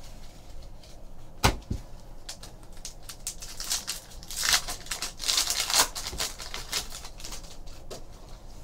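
A pack of trading cards being opened by hand: a sharp snap about one and a half seconds in, then crinkling and tearing of the pack's wrapper and the rustle of cards, busiest in the middle.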